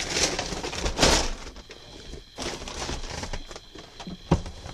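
Plastic shopping bags rustling and crinkling as they are grabbed and shifted, with a sharp knock about four seconds in.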